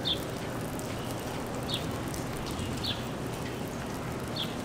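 Steady rain falling on wet pavement, with a bird giving four short, high, falling chirps through it.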